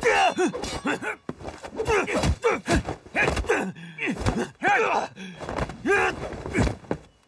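Men grunting, crying out and groaning with effort and pain in a hand-to-hand kung fu fight, one short cry after another, with a few punch and body-blow thuds between them.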